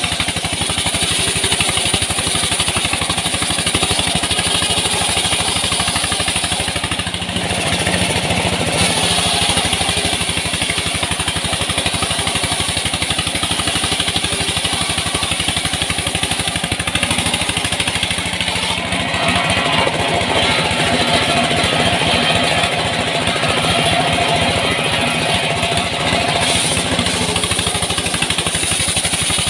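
Engine-driven wood saw running steadily while sawing sengon timber, a continuous fast chugging with a constant high whine above it.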